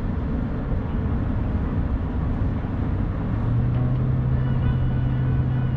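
Car driving at freeway speed, heard inside the cabin: a steady rumble of road and engine noise, with a steady low drone joining in about three seconds in.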